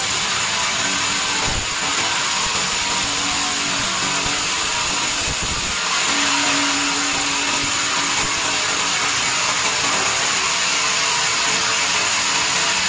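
Large sawmill band saw running steadily with its blade cutting through a timber cant on a log carriage: an even, loud, hissing saw noise with a steady high whine over it. A brief lower hum joins about six seconds in.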